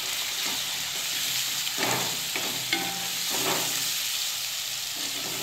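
Chopped onion, tomato and ground spices sizzling in oil in a non-stick kadai while a spatula stirs them: a steady frying hiss with a few scraping strokes of the spatula against the pan.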